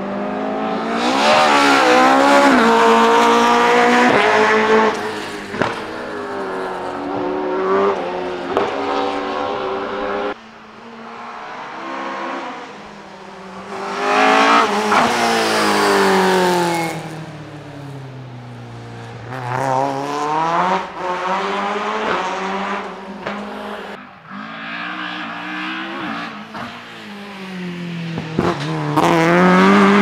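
Talbot Avenger rally car engine at full throttle: the revs climb and drop again and again through the gear changes as the car passes close by, in several separate runs. The loudest pass comes about halfway through, and the revs climb again near the end as the car approaches.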